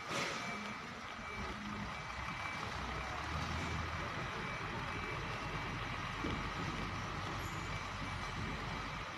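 A truck's reversing alarm beeping over and over on one high note, over the low rumble of a diesel truck engine running. A short burst of noise, the loudest moment, comes right at the start.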